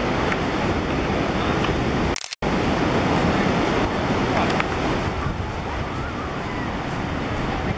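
Ocean surf with wind buffeting the microphone, a steady rushing noise that cuts out completely for a moment about two seconds in.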